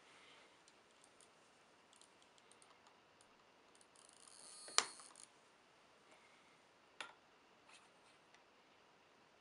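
A plastic ball link pressed by hand onto its metal link ball: a short scraping push that ends in a sharp snap about five seconds in as the link seats, then a second, smaller click about two seconds later, among faint handling clicks.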